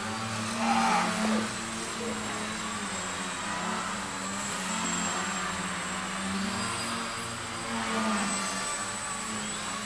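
Electric motors and propellers of small foam indoor RC aerobatic planes buzzing, their pitch shifting with the throttle. One swells louder as it passes close about a second in, and again near the end.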